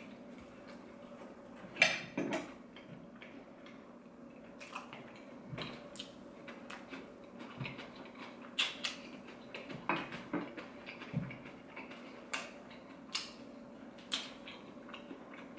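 Eating crispy fried chicken strips: irregular crunching and mouth clicks from chewing, with scattered sharp taps, the loudest about two seconds in, over a faint steady hum.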